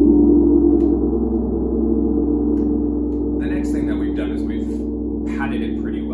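A large tam-tam ringing on after a stroke from a fleece-wrapped rubber-core mallet: a dense hum of several low sustained tones, loudest at the start and slowly fading.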